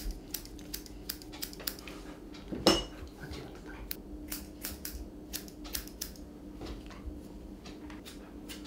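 Grooming scissors snipping through an Airedale Terrier's wiry coat: a run of short, sharp clicks at an uneven pace of about two or three a second. A louder knock comes about two and a half seconds in, over a faint steady hum.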